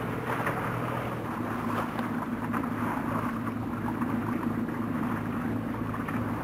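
Motorboat engine running at a steady speed, a low even hum, with wind and water wash hissing over it.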